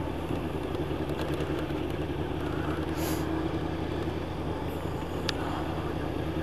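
Yamaha YZF 1000 cc motorcycle's inline-four engine running at a steady cruise, with wind and road noise. A short hiss comes about three seconds in.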